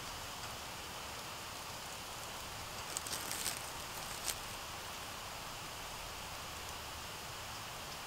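Dry leaf litter crackling briefly as a hand reaches in and grasps a porcini mushroom, followed about a second later by one sharp click, over a steady hiss of forest ambience.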